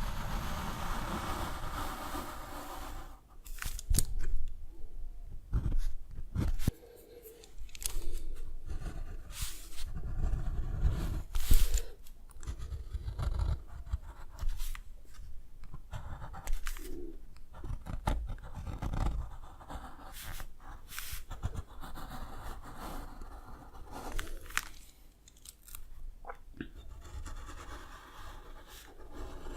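Drawing tools working on paper at close range: a steady scratchy stroking for the first few seconds, then shorter scratchy strokes broken up by sharp taps and handling knocks.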